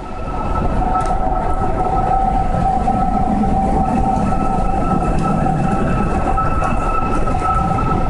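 Wind whistling through the One World Trade Center construction site, the 'wailing' heard on very windy days: a steady, unwavering whistle of two held tones, with a fainter higher tone joining about halfway, over rushing wind noise. It is not a police siren.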